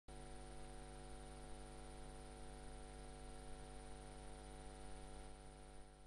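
Faint, steady electrical mains hum with a light hiss, unchanging throughout.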